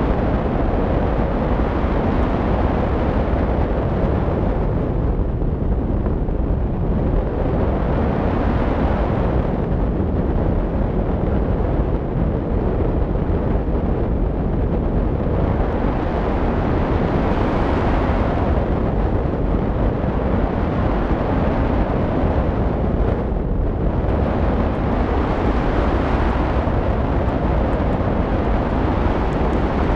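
Wind rushing over the microphone of a camera mounted on a hang glider's wing in flight: a loud, steady rush of air that swells and eases every few seconds.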